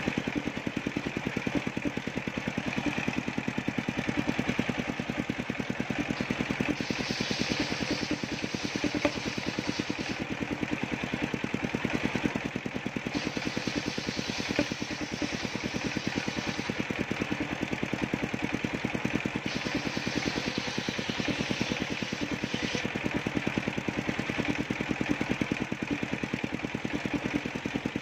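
Engine-driven homemade circular-saw sawmill running with a steady, rapid throb, its large blade ripping coconut-trunk timber in three cuts of a few seconds each; each cut adds a higher-pitched rasp over the engine.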